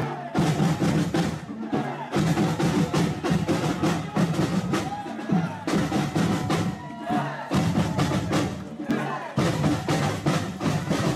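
Samba bateria playing live: bass drums, snare drums and other percussion in a fast, dense samba rhythm, dropping out briefly a few times.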